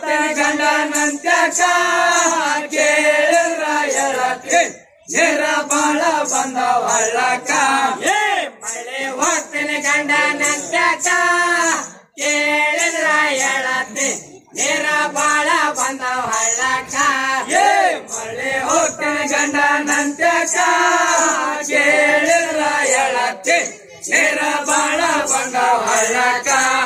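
A group of men singing a Rivayat devotional folk song in chorus, in long high-pitched phrases with short breaks between the lines.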